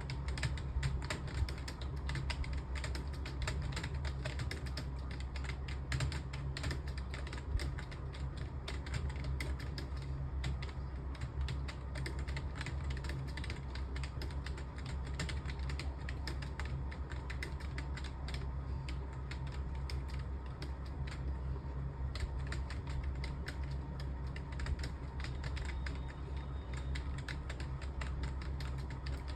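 Fast, continuous typing on a computer keyboard, a rapid irregular stream of key clicks over a steady low hum.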